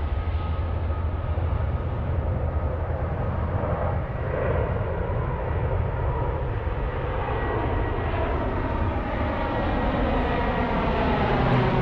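Engines of a C-130J Super Hercules turboprop transport running with a steady whine over a dense rumble, growing gradually louder toward the end.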